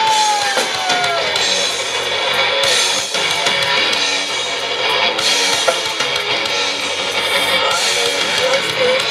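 Live rock band playing loud through the stage PA: distorted electric guitars, electric bass and drum kit. A long held note glides down and ends about a second in, and an instrumental passage follows.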